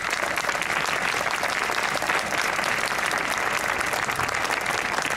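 An audience applauding, a steady, dense clapping.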